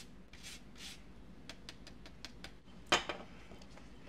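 A lemon being zested: rasping strokes of the rind across a grater, about two or three a second, for the first second. Then a quick run of light ticks and one sharp clink with a short ring about three seconds in, the loudest sound, like a utensil against a pan.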